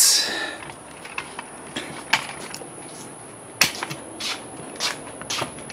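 Rustle of a handheld camera being picked up, then footsteps and small handling knocks, about two a second, as it is carried across a grass lawn, over a faint steady high hiss.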